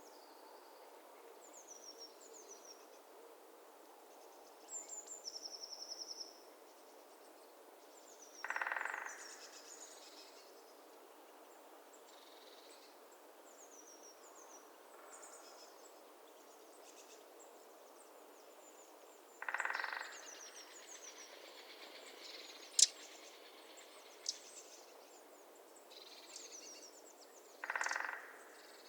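Winter swamp ambience with small birds giving thin, high, short chirps throughout and a brief trill early on. A louder, harsher sound comes three times, about ten seconds apart, and there is one sharp click about two-thirds of the way in.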